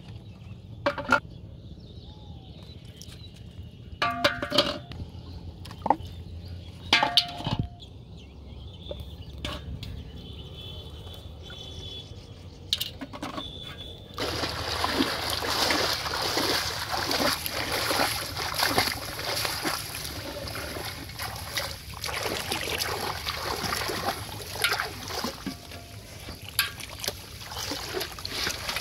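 Sparse knocks of plastic bottles and bait dropping against a large aluminium pot, one with a brief metallic ring. About halfway through, continuous sloshing and splashing of shallow water begins as the pot is set into the water and carried through it.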